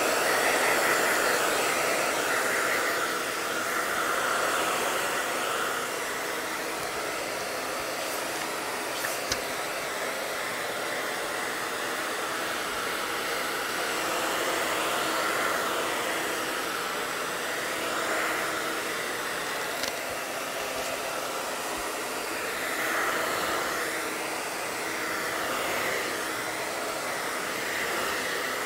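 Handheld hair dryer blowing steadily, drying a second coat of decoupage glue. The rush swells and eases slightly as the dryer is swept back and forth over the surface.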